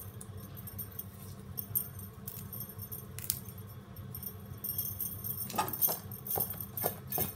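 Hand mixing masala-coated yam cubes in a stainless steel bowl, with light metallic clinks. From about five and a half seconds in, the bowl is tossed, giving a quick run of knocks and clatters of steel. A steady low hum sits underneath.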